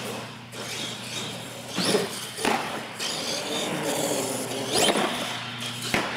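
Radio-controlled monster truck driving on a concrete floor, its motor and tyres running steadily, with several sharp knocks as it hits ramps and lands.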